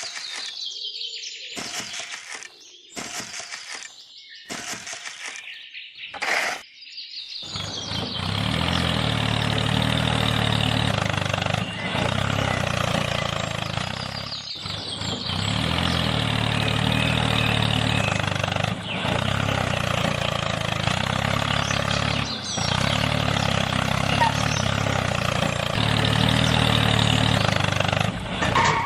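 Birds chirping over a few short choppy snippets, then, from about eight seconds in, a DIY mini tractor's small motor starts running steadily with an even chugging beat, briefly interrupted a few times.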